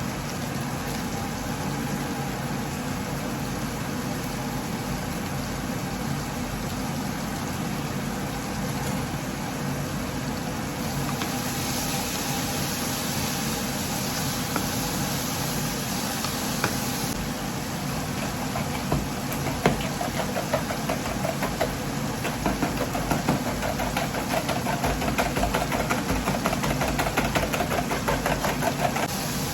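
Steady motor hum while eggs cook in a frying pan: hissing comes in for several seconds near the middle, and in the last third a quick rhythmic clatter of stirring in the pan.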